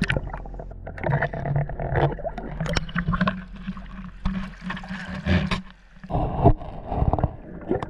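Shallow sea water sloshing and gurgling around an action camera held at the surface and dipped under, with irregular knocks and splashes.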